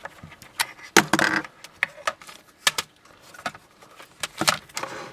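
Plastic power adapters and their cords being handled and unplugged: scattered clicks, knocks and rattles, the loudest about a second in and again near the end.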